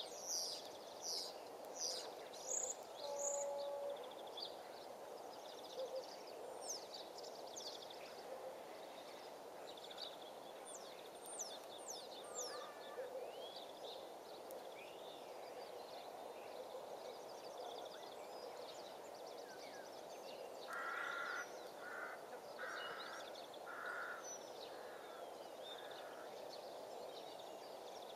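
Wild birds calling outdoors over a steady low background hiss: quick high chirps in the first few seconds and again near the middle, then a run of about six short calls a little past two thirds of the way in.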